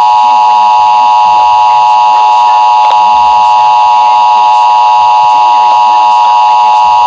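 Emergency Alert System attention signal: a loud, steady two-tone alarm pitched just under 1 kHz (the 853 and 960 Hz pair), held without a break and cutting off suddenly near the end.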